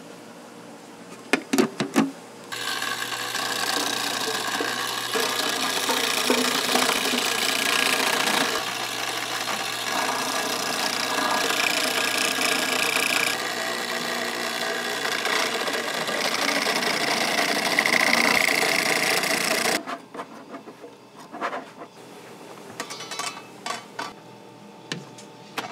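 A motorized machine runs for about seventeen seconds, switching on and off abruptly, with a mechanical rasping rub that shifts in level several times as it works; a few clicks come before it starts and after it stops.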